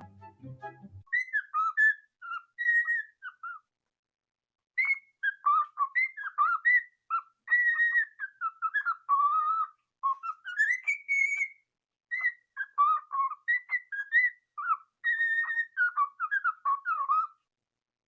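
A parrot whistling in warbling phrases of quick notes that slide up and down in pitch, with short pauses between the phrases.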